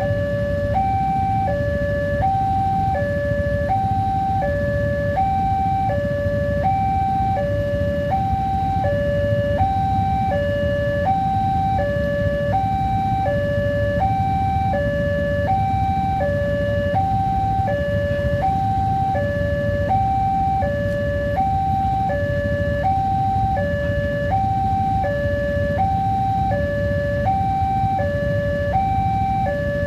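Railway level crossing warning siren sounding a steady two-tone alarm, alternating high and low about once every three-quarters of a second. A steady low rumble runs under it.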